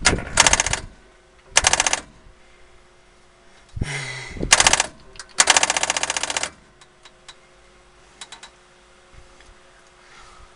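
John Deere 4840 tractor's starter chattering in four short bursts of rapid clicking while the engine fails to crank over and start. The owner traces it to a bad battery cable.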